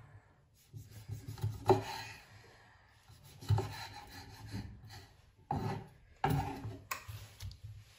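Kitchen knife slicing cherry tomatoes on a wooden cutting board, the blade scraping and knocking against the wood in several separate strokes.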